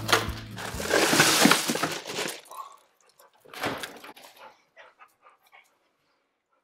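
Crushed ice in a cooler rattling and crunching for about two seconds as a large piece of hog meat is pulled out of it, then a few faint knocks and rustles.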